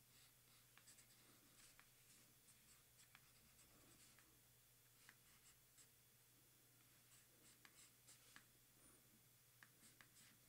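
Pencil sketching on a paper card: faint, irregular short scratches of quick strokes.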